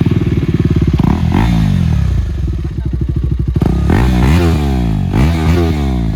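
Single-cylinder motorcycle running loud through an aftermarket SC Project exhaust: it idles fast and steady, then is blipped several times in the second half, the pitch rising and falling with each rev.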